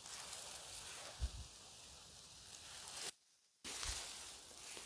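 Leaves and forest undergrowth rustling over a steady hiss, with two soft low thumps, and the sound cutting out completely for about half a second just past three seconds in.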